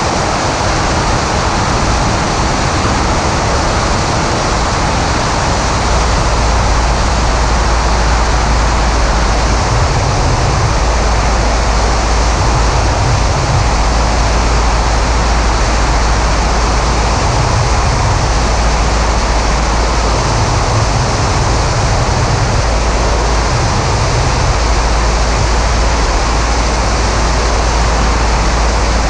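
Steady roar of airflow and the Maule M5-180C's engine and propeller in flight, heard through a camera mounted outside on the wing. Wind buffets the microphone in low rumbling gusts that come and go.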